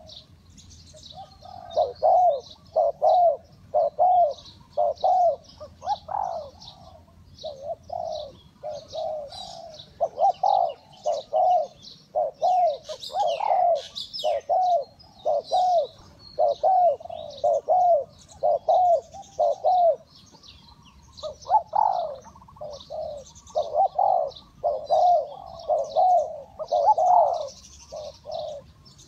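Spotted dove cooing over and over in runs of low, repeated coos, with short breaks. Faint high chirping of small birds runs underneath.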